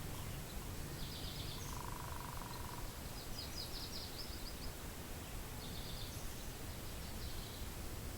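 Wind rumbling on the microphone, with a songbird singing several short trills of rapid high notes, and a lower buzzy call about two seconds in.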